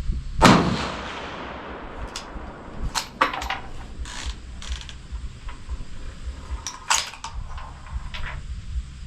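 A single rifle shot about half a second in, its report trailing off over about a second, followed by a scattering of short sharp clicks and clacks. Wind rumbles on the microphone underneath.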